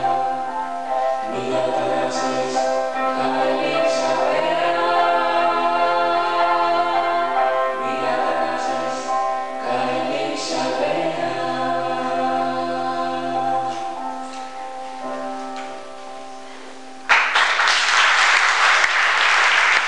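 A song sung into a microphone with accompaniment, the melody held in long notes, fading out about 16 seconds in. About a second later the audience breaks into loud applause.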